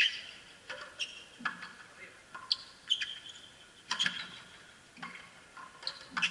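Frontenis rally: the rubber ball cracking off the players' strung racquets and the frontón walls in a string of sharp knocks, about one every half second to a second, with short high squeaks from shoes on the court.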